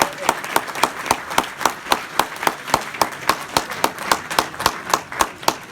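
Audience clapping, with one pair of hands near the microphone clapping in a steady rhythm of about five claps a second.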